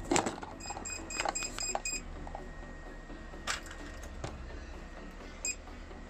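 A click, then a quick run of about six short, high electronic beeps, then a few more clicks and a single beep near the end. The sounds come from the car's electrics being switched on to test newly wired gauges.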